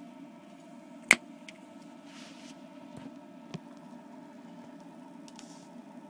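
HHO oxy-hydrogen torch setup running with a steady low hum. A sharp click about a second in, and a smaller one about three and a half seconds in.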